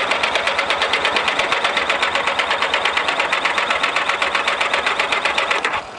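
Yamaha XJ900 Diversion's electric starter cranking its inline four-cylinder engine with the choke on, a fast, even chugging of about eight beats a second that never catches, stopping near the end. The engine won't start.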